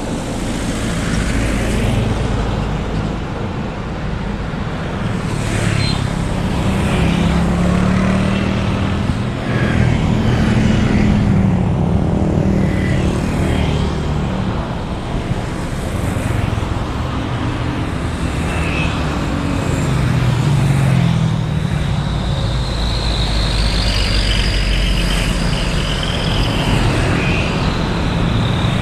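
Continuous road traffic, with cars and motorbikes passing one after another, their engine notes swelling and fading as they go by. A high whine rises and falls in the last few seconds.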